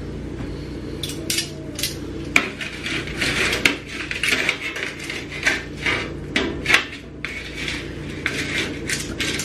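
Metal kitchen tongs and a fork clinking and scraping against cookware: an irregular run of clatters and knocks, the loudest a little past halfway.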